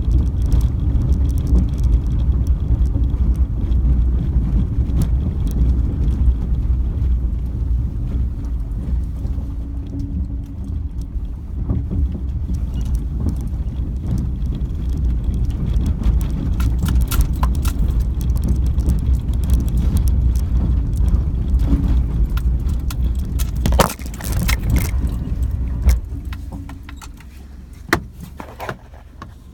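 Car driving slowly on a gravel road, heard inside the cabin: a steady low rumble of engine and tyres, with scattered clicks and knocks over the bumps. Near the end, after a couple of sharp knocks, the rumble drops away and the sound goes much quieter.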